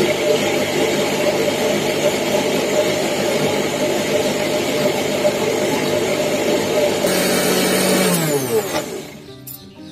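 Electric mixer-grinder grinding soaked urad dal into a thick paste, its motor running steadily, then switched off about eight seconds in and winding down with a falling pitch. The dal is ground in short bursts with stops in between, so the mixer is not overworked.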